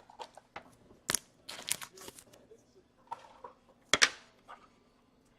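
Trading cards being handled on a table: short rustles and sliding swishes, with two sharp clicks, one about a second in and a louder one about four seconds in.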